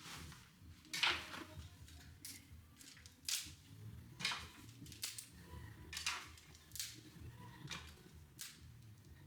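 A broom sweeping a floor: short, faint swishing strokes, about one a second.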